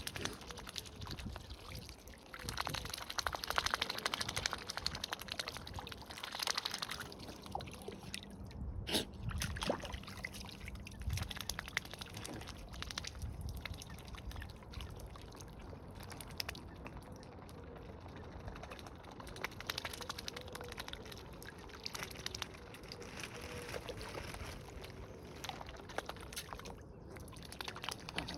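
Water gurgling and sloshing unevenly, busiest in the first few seconds.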